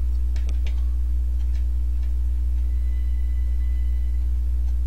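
Steady low electrical hum in the recording, with a few faint ticks in the first second and a half.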